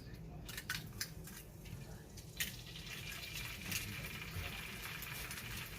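Egg frying in a cast iron skillet: a few light taps, then a sharp tap about two and a half seconds in, after which a steady sizzle sets in.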